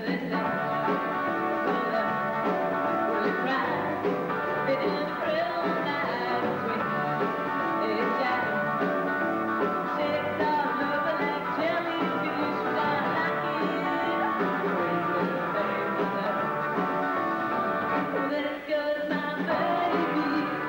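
Live rock band with a female lead singer singing over electric guitar and drums, with a brief dip in the music near the end.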